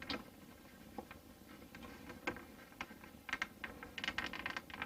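Faint scattered clicks and small rattles of hands working a squeeze-type spring clamp onto a diesel heater's fuel line, with a few quick clusters of clicks about three and four seconds in.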